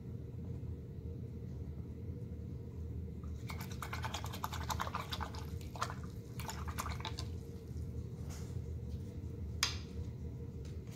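Paintbrush being swished and tapped in a water jar: a few seconds of quick crackly clicking and splashing, then a fainter patch and one sharp tap against the jar. A steady low hum runs underneath.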